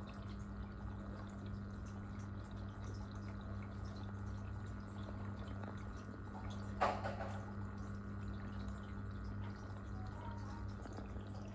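Aquarium pump humming steadily with water trickling and dripping, and a single short knock about seven seconds in.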